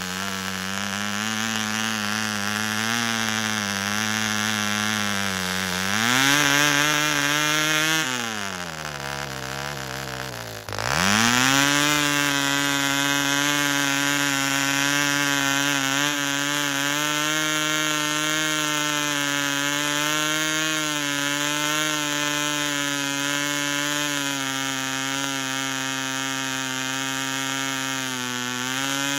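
Tiny Cox .020 Tee Dee model glow engine running with a buzzing note. Its revs rise about six seconds in, then sag to a near-stall idle, then pick back up sharply and hold steady.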